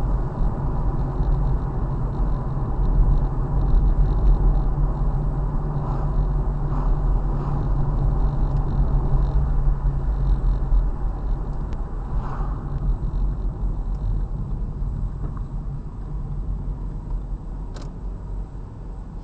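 Ford Mustang driving, its engine and tyre noise heard from inside the cabin as a steady low rumble that grows quieter in the last few seconds.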